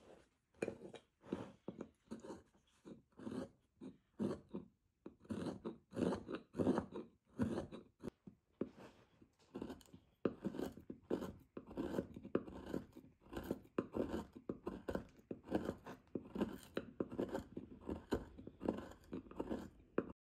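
A hand-held carving tool cutting into hard Japanese zelkova (keyaki) wood in a steady run of short scraping cuts, roughly one to two a second.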